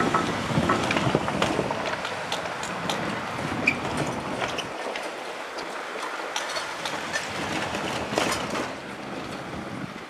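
Kintetsu 5211-series and 9000-series electric train running past, a steady rumble with irregular clicks of the wheels over the rail joints. The sound fades gradually as the train moves on.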